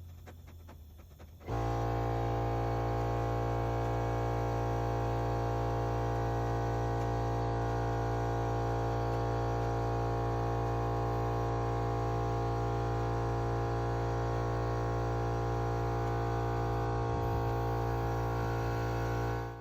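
Air compressor inflating a tire: the motor starts abruptly about a second and a half in, runs at a steady unchanging pitch, and cuts off at the end.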